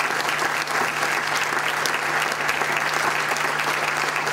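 Audience applauding: many hands clapping together at a steady level, over a faint steady low hum.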